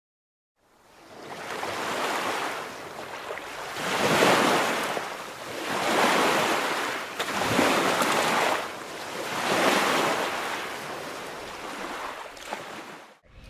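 Waves washing in, swelling and fading in surges about every two seconds; the sound fades in at the start and cuts off abruptly near the end.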